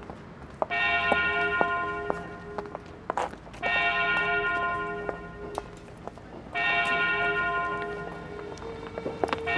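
A single church bell tolling slowly, one stroke about every three seconds, each stroke ringing on and fading before the next.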